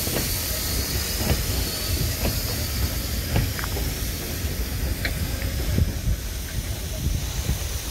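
SNCF 241P steam locomotive and its tender rolling past on the rails: a steady low rumble with irregular clacks and knocks from the wheels over rail joints and points. A hiss of steam thins out through the passage.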